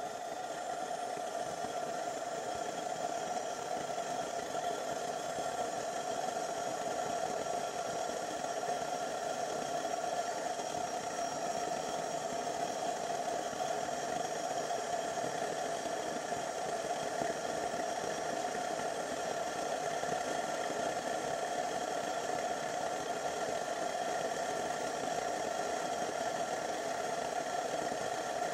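Homemade 20 mm gas burner with computer-fan forced air, firing steadily: an even rushing flame noise with a strong hum in the middle range and faint steady higher whines. It swells slightly in the first second, then holds.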